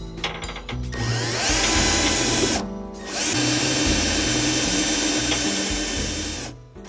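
Power drill drilling out rivets in two runs, a short one of about a second and a half and a longer one of about three and a half seconds. Each run rises in pitch as the drill spins up, then holds a steady whine.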